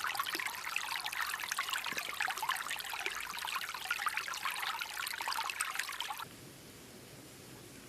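Water trickling and splashing, a dense steady babble that cuts off abruptly about six seconds in, leaving a faint hiss.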